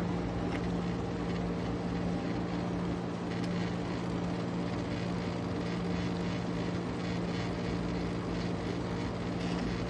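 1970s Emerson Quiet Cool 5000 BTU window air conditioner running steadily, its compressor humming under the rush of the fan and blowing cold air.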